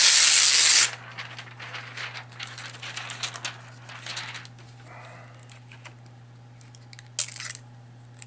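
Clear plastic protective wrap being pulled off a laptop lid: a loud plastic rustle at the start, then crinkling and crackling as the plastic is handled for a few more seconds, and a short rustle again about seven seconds in.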